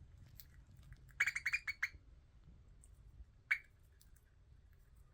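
Budgie squawking: a quick run of about six harsh calls about a second in, then one more single call about halfway through. The birds are squabbling over millet, and these are the irritated calls the female makes when something bothers her.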